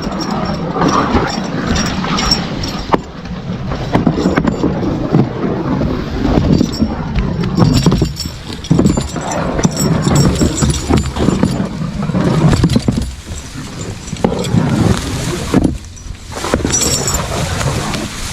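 Belgian draft horse walking in harness with the driver following on foot: an uneven jumble of hoofbeats, harness clinking and footsteps, loud throughout with many short knocks and clicks.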